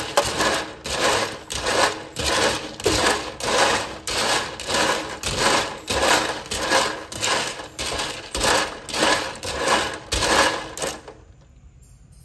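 A stiff brush scrubbing blood cockles in a stainless steel bowl of water, the shells scraping and clattering in even back-and-forth strokes about twice a second. The scrubbing stops near the end.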